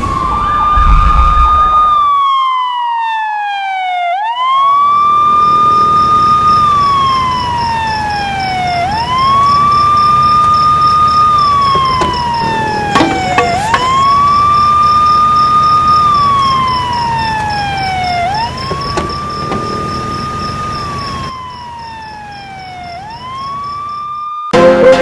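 A siren wailing in slow cycles. Each cycle climbs quickly to a held high note, then slides steadily down, about every four to five seconds. A loud low rumble sounds under it in the first two seconds.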